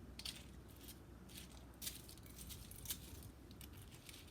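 Cereal being eaten: faint, scattered crunches and clicks, a few seconds apart.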